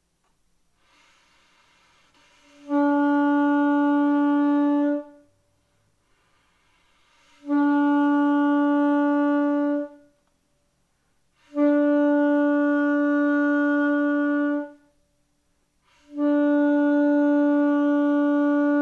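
Alto saxophone playing four long notes on one pitch, each about two to three seconds long with short breaths between. Each note starts from a second of breathy air before the tone speaks: the blown (breath-attack) articulation, started with air rather than the tongue.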